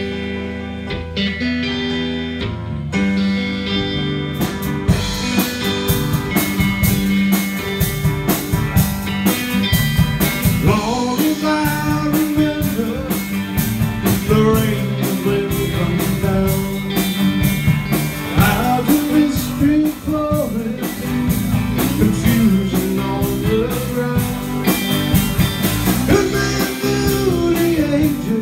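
Live rock band playing: electric guitar intro, with the drum kit coming in about four seconds in and a man's lead vocal entering about eleven seconds in.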